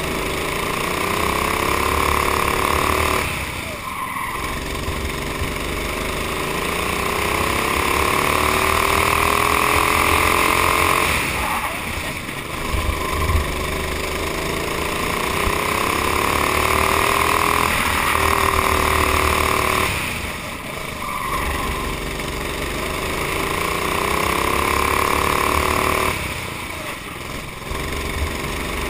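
Honda GX390 single-cylinder four-stroke kart engine at racing speed. Its pitch climbs steadily as the kart accelerates out of each corner, then drops off sharply when the throttle is lifted for the next one, four times over.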